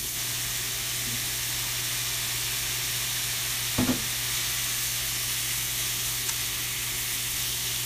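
Thin slices of beef sizzling in sesame oil in a frying pan, stirred with chopsticks; a steady frying hiss. About four seconds in, a short double knock as julienned carrots go into the pan.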